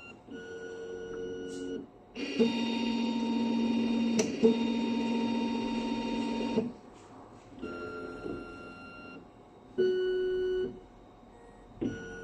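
Graphite furnace AAS autosampler's motors whining in a series of separate moves: a short move, then a louder one lasting about four seconds, then several shorter moves. Each move holds one steady pitch and stops abruptly.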